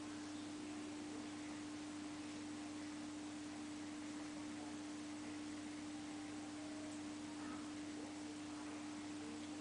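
A steady, unchanging mid-pitched electrical hum over a faint hiss.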